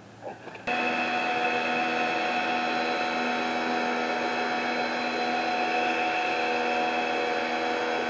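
Sun Joe electric pressure washer kicking on suddenly under a second in, then running steadily: a motor-and-pump whine over the hiss of water spraying from the wand.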